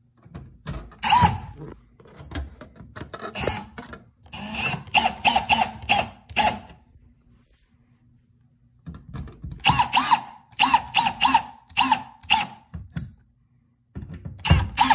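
Hand screwdriver tightening a mounting screw into a plastic wallplate adapter: runs of short turning strokes, several a second, with a brief ringing squeak on each stroke and a pause of about two seconds around the middle.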